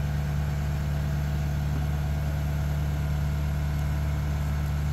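Diesel engine of a Tadano ATF 100G-4 all-terrain crane running at a steady, even low drone while the crane holds its load suspended.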